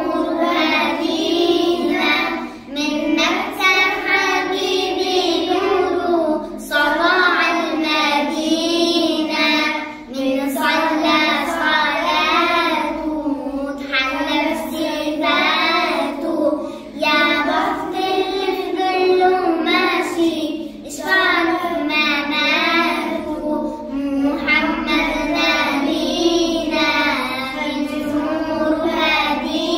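A young girl singing solo, a melodic religious chant in a high voice, with short breath pauses every few seconds.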